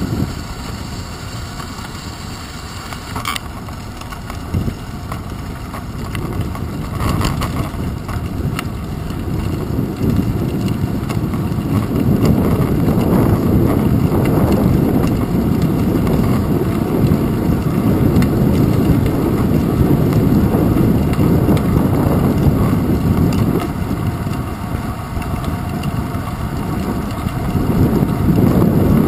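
Wind buffeting the microphone of a handlebar-mounted GoPro on a moving bicycle, with rumble from the tyres and bike on the asphalt path. The noise grows louder about a third of the way in, and there are two light knocks in the first several seconds.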